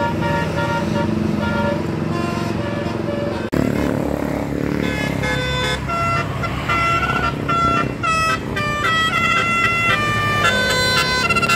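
Bus 'telolet' multi-tone musical air horn playing a tune of short stepped notes over the bus's running engine. About a third of the way in it breaks off, and another horn tune of rapid stepped notes starts.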